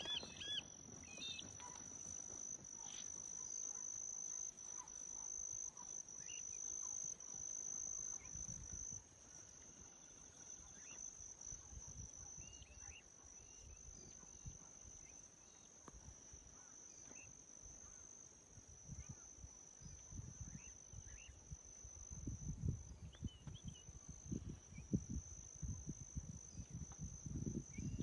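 A steady, high-pitched drone of insects, with a few short bird chirps here and there. Irregular low bumps come in over the second half.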